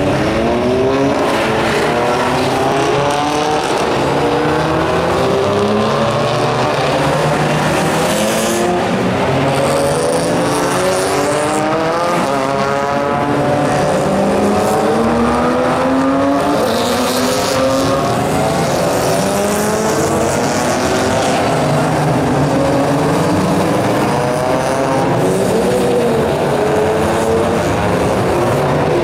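A field of race cars accelerating past at the start, many engines running at once, their notes overlapping and rising and falling as the cars shift gear and go by.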